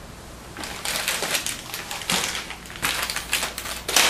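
Plastic accessory bags holding SATA cables and an SLI bridge crinkling as they are handled and set down, with irregular rustles and small clicks.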